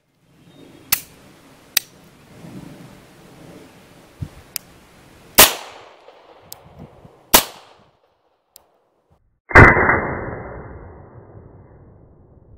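Beretta 92G pistol being fired one-handed, about five shots at uneven intervals. The last shot is among the loudest and rings out for a couple of seconds.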